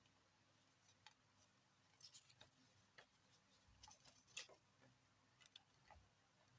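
Faint, irregular small clicks and taps, about a dozen over a few seconds, the strongest about four and a half seconds in, over a quiet room hum.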